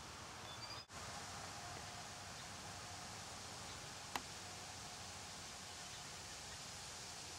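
Steady, faint outdoor background hiss. It cuts out for an instant about a second in, and there is a single sharp click about four seconds in.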